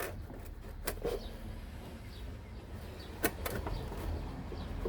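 A few faint clicks and knocks of hands working a loosened part of the washer fluid reservoir and pump assembly free, over a steady low hum.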